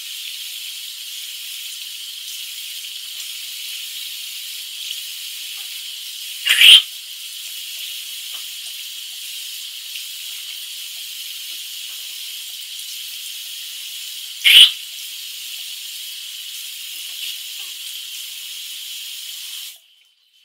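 Water from a bathroom tap running into the sink as a steady hiss, with two loud splashes about six and a half and fourteen and a half seconds in. The hiss cuts off suddenly near the end.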